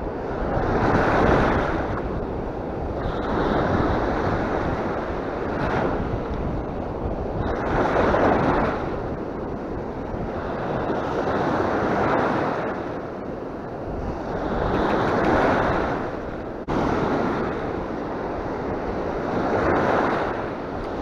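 Small waves breaking and washing up a shallow sandy beach, swelling and falling back every three to four seconds, with wind rumbling on the microphone.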